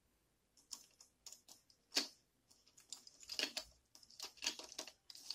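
Light clicks and taps of a small die-cast toy car's metal body and plastic parts being handled and fitted back together, with a sharper click about two seconds in.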